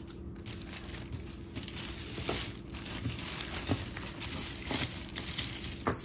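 Loose mixed jewelry clinking and jingling as it is rummaged through by hand: a run of small metallic and glassy clicks and chinks, with a few louder ones.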